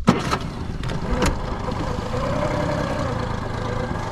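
Boat motor running steadily while trolling, with a sharp click at the start and another about a second in.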